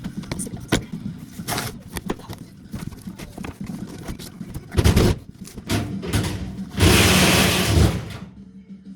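A cardboard parts box being opened and handled, with repeated knocks and clicks, a heavy thump about five seconds in, and a loud burst of scraping noise lasting about a second near the end.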